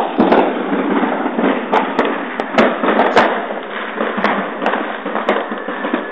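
New Year's fireworks and firecrackers going off all around: a dense, continuous crackle with about a dozen sharp bangs at irregular intervals.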